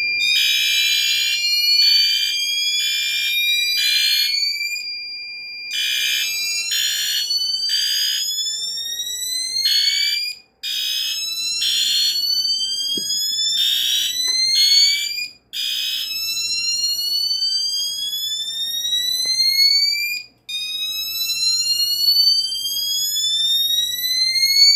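Fire alarm signalling devices going off after the System Sensor PDRP-2001 suppression panel is put into alarm. A slow-whoop tone rises in pitch over and over. Through the first two-thirds a pulsing horn sounds in groups, and for the first several seconds there is a steady high beep. The sound briefly cuts out a few times.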